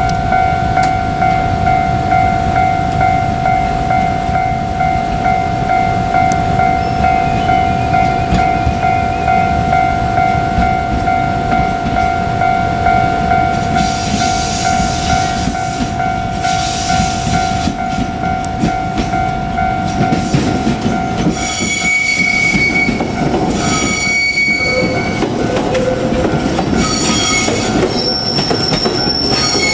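A Japanese level-crossing alarm bell rings steadily over the rumble of a JR Kyushu 817 series electric train passing. About 21 seconds in, the bell stops and the train's wheels squeal in several high tones.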